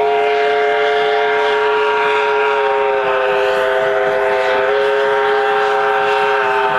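Steam whistle of NZR Ab-class locomotive Ab 795 blowing one long, steady blast, several tones sounding together as a chord.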